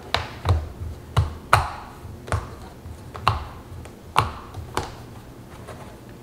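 Sharp clicks and taps, about nine in five seconds at an irregular pace, as the small metal retaining tabs on the back of a picture frame are flipped up and the backing board is worked loose.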